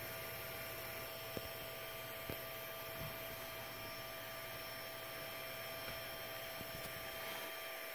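Ender 3 Pro 3D printer's cooling fans running steadily, a quiet whir with a faint hum, as the hot end cools down after a print. A few faint ticks in the first three seconds.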